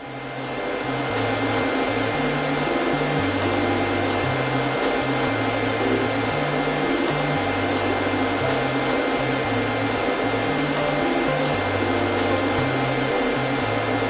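A DUZ standing pet dryer blows air through its flexible hose onto a dog's coat: a steady rush of air with a thin, steady high whine from the fan motor, coming up to full strength over the first second.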